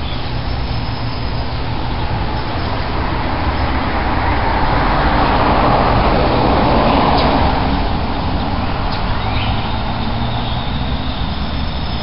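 Road traffic noise with a steady low rumble; a vehicle passes, swelling and fading from about four to eight seconds in.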